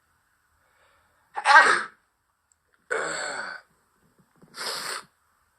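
A man sneezing three times in a row, each sneeze short and sharp, the first the loudest.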